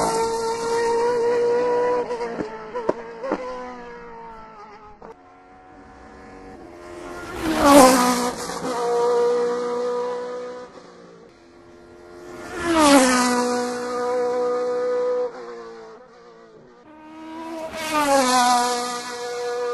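Race cars passing one after another at full throttle, four passes about five seconds apart. Each engine note drops in pitch as the car goes by, then holds a steady high-revving tone that fades as the car pulls away.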